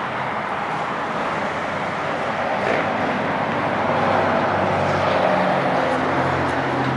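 Steady car noise: an engine hum with a rush of tyre and road noise, the hum rising a little in pitch and level around the middle.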